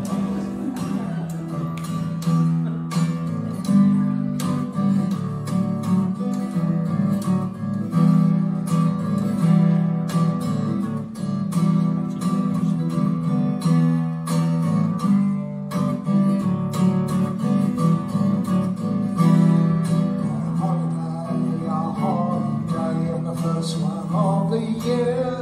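Solo acoustic guitar in standard tuning playing a steady, rhythmic instrumental introduction, with a repeated low bass line under the higher notes.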